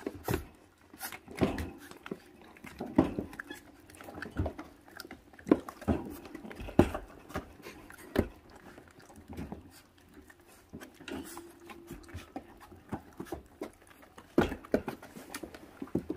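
Four-week-old puppies making short vocal sounds as they bite and tug at a strip of raw meat, one of them held for about a second just past the middle. Chewing and paws scrabbling on the pen floor are heard between them.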